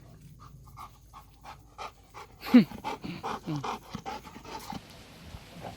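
Dog panting hard after running, about two pants a second, with one short falling vocal sound about halfway through.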